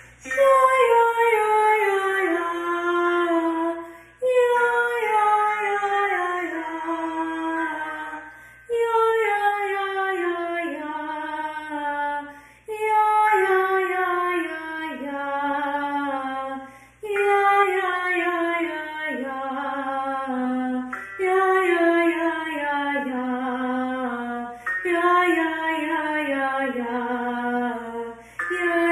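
A woman's voice singing a descending scale warm-up, about seven runs of roughly four seconds each, every run starting a half step lower than the one before.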